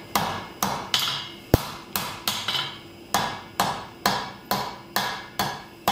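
Blacksmith's hand hammer striking a red-hot flat mild steel bar over the anvil horn, drawing it out: a steady rhythm of about two blows a second, each with a short metallic ring.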